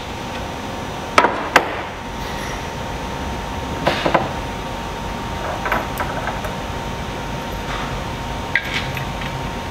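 Metal clanks and knocks of hand tools and bolts against an aluminium engine-to-transmission motor plate as it is worked into position, with two sharp knocks about a second in and a few lighter ones later, over a faint steady hum.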